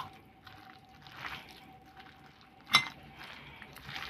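A bare hand squishing and kneading mashed potato and roasted aubergine with mustard oil in a glass bowl, making soft, irregular squelching rustles. About two-thirds of the way in there is one sharp clink against the glass bowl.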